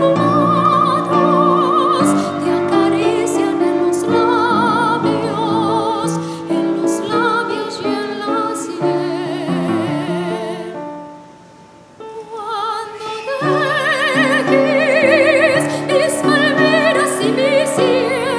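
Operatic soprano voice singing with wide vibrato over piano accompaniment. Near the middle the music falls almost to nothing for about a second, then the voice comes back in and swells loud again.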